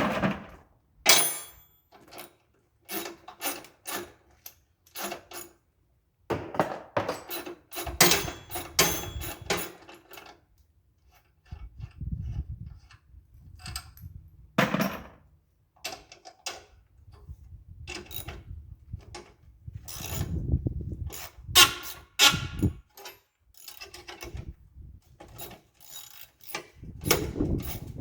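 Hand tools working on the metal frame of a Craftsman LT4000 lawn tractor as it is unbolted. Irregular clicks and clanks are heard throughout, with a few stretches of low rubbing or scraping.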